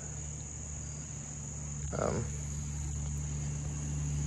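A steady high-pitched chorus of insects, with a low steady hum underneath and a brief murmur from a man's voice about two seconds in.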